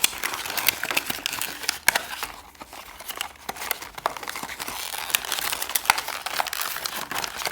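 Packaging being handled and pulled open: crinkling and rustling with many sharp clicks and crackles. It eases off briefly about two and a half seconds in.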